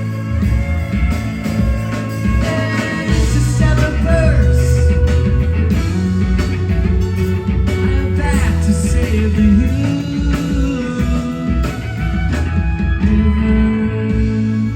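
Live rock band playing with a lead singer: guitars, bass and drums under a sung melody.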